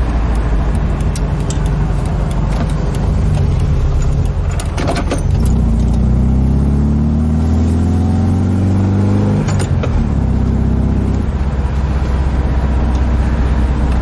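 VW Type 3's air-cooled flat-four engine, heard from inside the cabin while driving. Its note rises steadily as the car accelerates through a gear, then drops at a gear change a little over halfway through.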